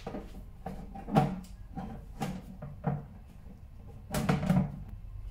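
Plastic lid of an acrylic drying box being set and pressed into place: a run of short knocks and clatters, the loudest cluster near the end.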